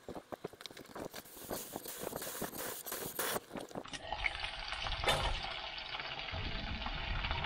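Chicken nuggets frying in oil in a mild steel skillet: dense crackling and spitting that grows thicker. About four seconds in it gives way to a steady sizzle, with one sharp knock about a second later.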